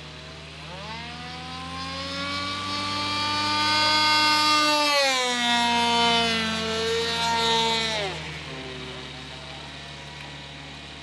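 MVVS engine of a radio-controlled Messerschmitt Bf 109 model flying overhead at high revs. The engine note rises in pitch and grows louder over the first few seconds, its pitch falls about halfway through, and it fades quickly after about eight seconds.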